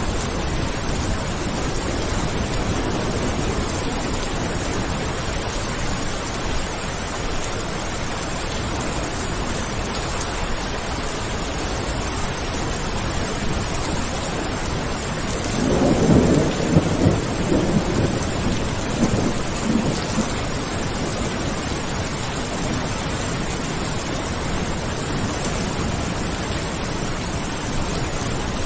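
Steady rain falling during a thunderstorm, with a roll of thunder that swells about halfway through and rumbles in several peaks for a few seconds before fading back into the rain.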